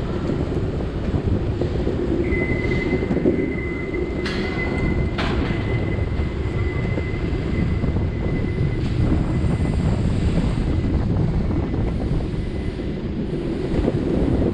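Wind buffeting the microphone, with road rumble, while riding along a city street. A thin, steady high whine runs through most of it, and two sharp clicks come about a second apart a few seconds in.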